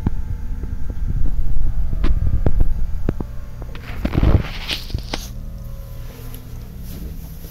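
Handling noise of a camera being picked up and moved: a run of knocks and clicks and a rustle about four seconds in, over a steady low hum.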